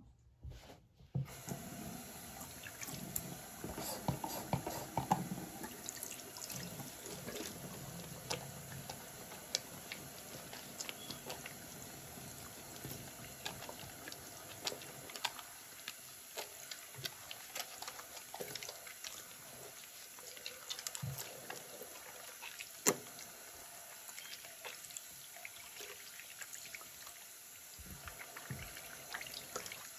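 Water from a bathroom sink faucet, turned on about a second in, running steadily into the basin while hands are lathered and rinsed under the stream, with small splashes and wet hand sounds throughout.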